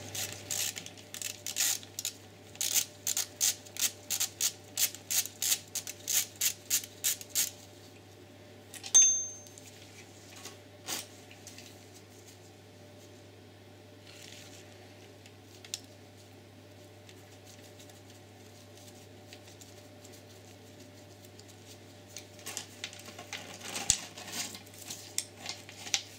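Hand ratchet clicking in regular strokes, about two a second, as a small hex screw on a metal line's bracket is undone, then a single light metallic clink. After a quiet stretch, more ratchet clicking and tool clinks start about 22 seconds in.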